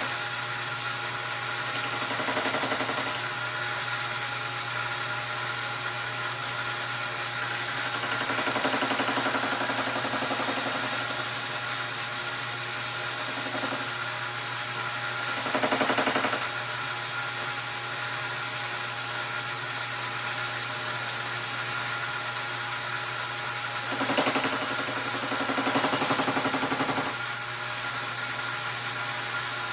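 Metal lathe running with a steady motor hum while a high-speed steel bit faces an aluminium piston. Louder stretches of cutting noise come and go several times. The noise comes from the bit hitting the little clip that holds the piston ring in, which the operator identifies as the cause.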